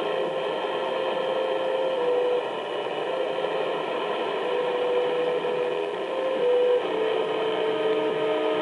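Shortwave AM broadcast from PBS Xizang on 4905 kHz received on a regenerative receiver: faint music of held notes that step up and down in pitch, under a steady hiss of static.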